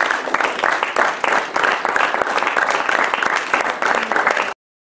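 Audience applauding: dense, steady clapping that cuts off abruptly near the end.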